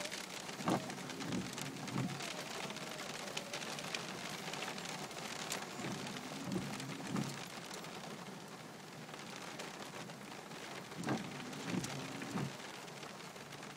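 Rain pattering on a car windshield, heard from inside the car. Three times, about five seconds apart, the windshield wipers make a pass: a knock, a short rubbing sweep and another knock.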